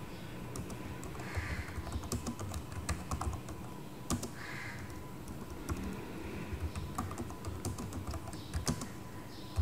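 Keys being typed on a computer keyboard, an irregular run of clicks as an address is entered.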